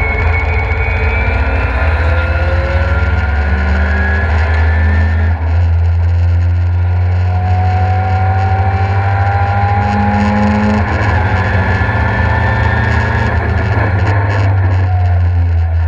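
Mk2 Ford Escort's engine heard from inside the cabin under hard acceleration, a heavy low drone whose pitch climbs slowly. The pitch dips briefly about five seconds in and falls away near eleven seconds, where the rise breaks off.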